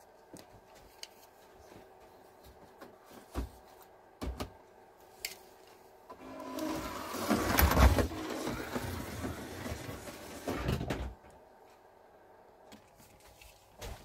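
A slot car running past on the track, its small electric motor whirring and its pickup and tyres buzzing in the slot. It builds from about six seconds in, is loudest a little before the eight-second mark and fades out by about eleven seconds, with a few faint clicks before it.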